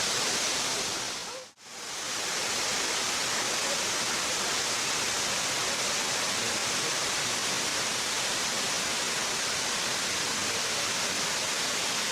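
Kursunlu Waterfall's water cascading in a steady, even rush. About a second and a half in, the sound drops out briefly and fades back in.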